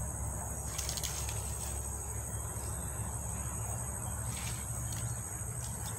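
Steady high-pitched drone of an insect chorus over a low rumble, with a few faint rustles.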